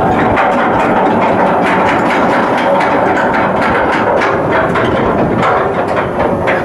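Ship's machinery running with a loud, steady din and a fast irregular clatter of clicks through it.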